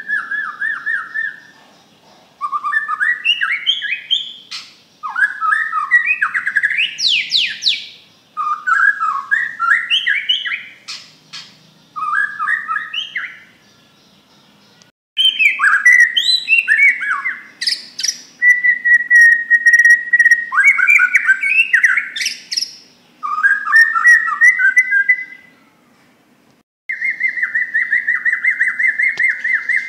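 White-rumped shama (Bornean murai batu) singing loudly: a string of phrases of rapid, varied whistles and chatters, each a second or two long with short pauses between, and one held whistled note about two-thirds of the way through. A loud song of the kind used as a lure (pancingan) to set other shamas singing.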